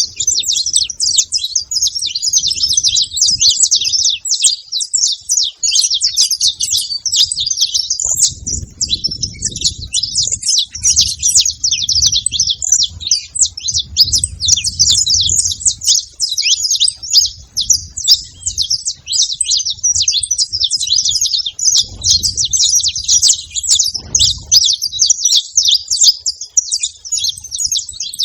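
Saffron finches, male and female, chirping and twittering continuously in a dense, fast stream of high notes.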